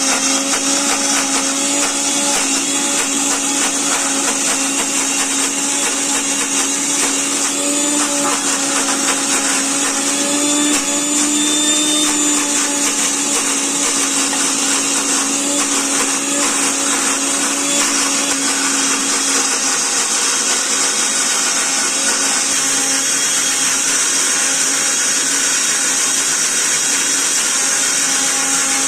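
Prestige 1000-watt mixer grinder running continuously, grinding corn kernels with jaggery into a batter. A loud, steady motor whine whose pitch rises slightly about eleven seconds in, then settles.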